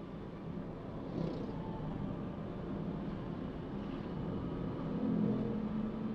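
Toyota Calya being driven: steady engine and road noise, with the engine note growing louder about five seconds in.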